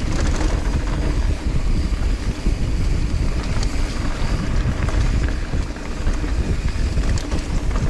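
Mountain bike descending a dirt trail at speed, heard from a handlebar-mounted GoPro Hero9: wind noise on the microphone and tyres rolling over dirt and leaves, with the bike clicking and rattling over bumps.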